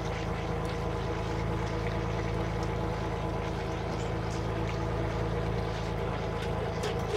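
A fishing boat's engine running steadily, a constant even drone with a few faint clicks over it.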